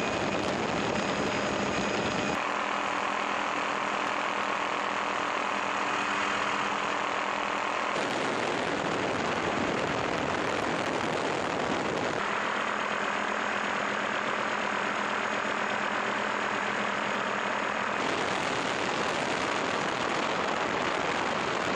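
Helicopter engine and rotor noise heard from inside the cabin: a steady rushing drone with a faint high whine. Its tone shifts abruptly several times, about every four to six seconds.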